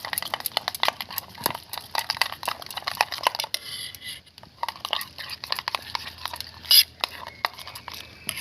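A spoon beating a yogurt and spice mix in a bowl, with rapid clicking strokes against the bowl that thin out after about three and a half seconds.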